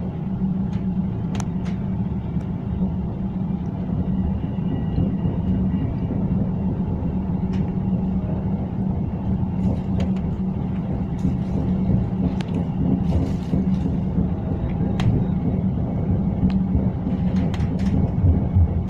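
Tram running steadily, heard from inside the passenger cabin: a constant low rumble and hum with occasional short clicks and rattles.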